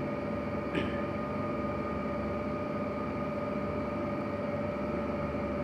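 Steady mechanical hum with a fixed high tone in it, and one faint click about a second in as the plastic ultrasound head is twisted open by hand.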